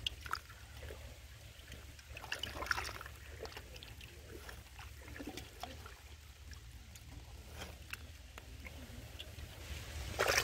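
A hand groping in a small flooded mud hole: scattered small splashes and squelches of muddy water, busiest about two to three seconds in.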